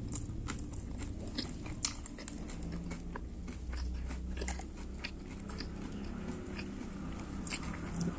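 Close-up biting and chewing of crispy fried tofu, with irregular crunchy crackles over the wet mouth sounds.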